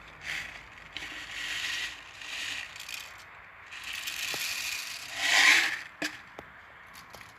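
Airsoft BBs being loaded and the pistol's magazine handled: several stretches of rattling and scraping, the loudest a little after five seconds, with a few sharp clicks near the end.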